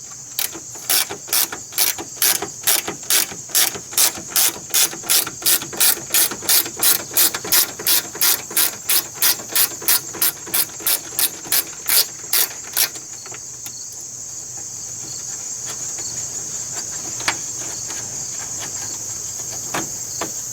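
Hand ratchet wrench clicking steadily, about four clicks a second, as a bolt holding the Jeep Cherokee XJ's fan shroud is backed out. The clicking stops about thirteen seconds in, leaving a steady high chirring of crickets.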